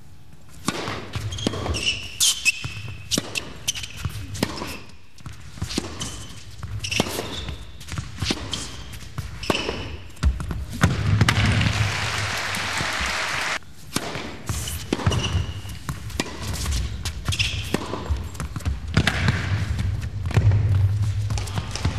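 Tennis ball bouncing on the court and being struck by rackets in a large indoor hall, a series of sharp echoing hits. About halfway through, a spell of applause cuts off suddenly.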